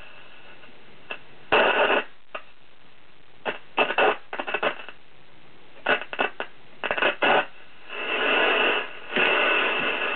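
Vintage Zenith Trans-Oceanic transistor radio playing through its speaker: several short bursts of static and crackle, then a steady hiss of static from about eight seconds in.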